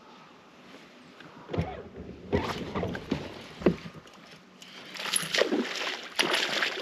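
A hooked bass splashing and thrashing at the water's surface as it is reeled to the boat, in a few sharp splashes from about a second and a half in and a rougher burst of splashing near the end.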